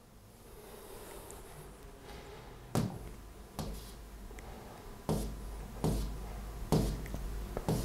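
A series of about six short, sharp knocks, roughly one a second and irregularly spaced, starting nearly three seconds in, over faint room tone.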